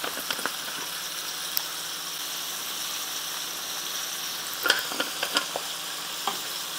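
Ground beef sizzling as it fries in a pan, a steady hiss, with a few light clicks and taps about five seconds in.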